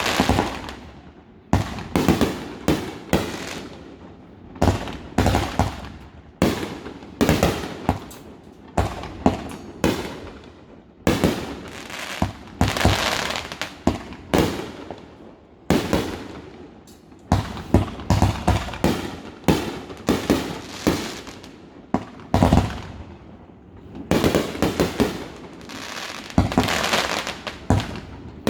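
Fireworks display: shells bursting one after another in irregular succession, the bangs sometimes bunching into rapid clusters of several a second, each trailing off in an echo.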